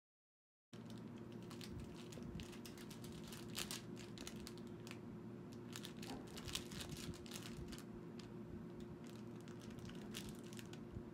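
Faint scattered clicks and small crinkling rustles from a tiny teacup poodle puppy tugging and dragging a plush frog toy across the carpet, over a steady low hum, starting just under a second in.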